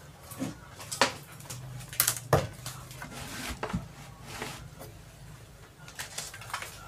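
Loudspeaker cabinet and its wire being handled and set in place, giving a few sharp knocks and clatters, the loudest about two seconds in. A low hum runs underneath.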